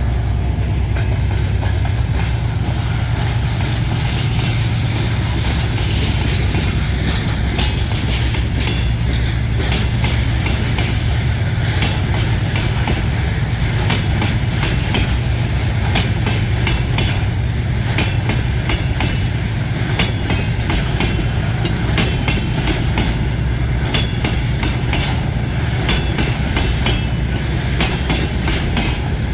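Freight train rolling past at a level crossing, loud: a steady deep rumble with the wheels clacking in a running series of clicks that grows busier in the second half.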